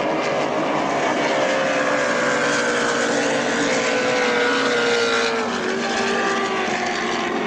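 Racing powerboat engine running hard as the boat speeds past. Its pitch slowly falls and drops more noticeably about five seconds in.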